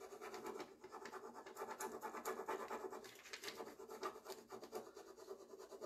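Fingertips rubbing a rub-on decor transfer onto a drawer front, a faint, irregular scratching on the clear plastic backing sheet as it is worked and peeled away.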